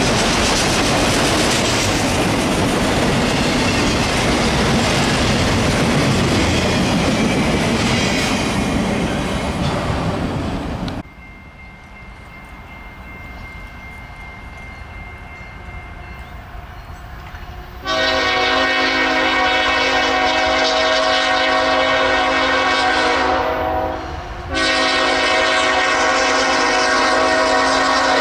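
A freight train rolls past close by, its wheels clattering and rumbling on the rails. The sound cuts off abruptly about eleven seconds in. After a quieter stretch, a diesel locomotive's multi-chime air horn sounds two long blasts, the second still going at the end.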